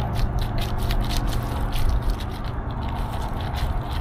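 Irregular scraping and crackling clicks, several a second, of playground ground cover being disturbed, over a low steady rumble.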